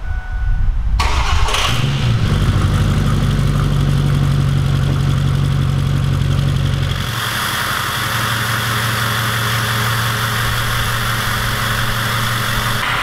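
Ford 6.0 Power Stroke V8 turbodiesel of a 2004 F-350 crew cab cranking briefly and starting about a second in, then idling through an open exhaust that ends ahead of the rear axle. About seven seconds in the idle steps lower and a hiss rises over it.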